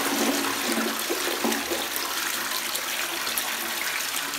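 A Roca dual-flush toilet flushing: a steady rush of water swirling down a bowl full of runny bath slime.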